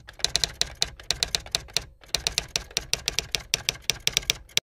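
Typewriter typing sound effect: quick key clacks at about five or six a second, with a short break about two seconds in, stopping abruptly.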